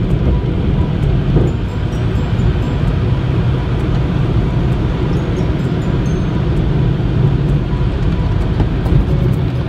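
Automatic tunnel car wash running: a steady low rumble of the machinery and spinning cloth brushes, with faint small ticks over it.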